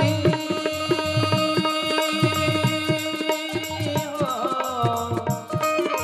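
Bhajan music: tabla keeping a steady rhythm under a held melody, which slides downward about four seconds in.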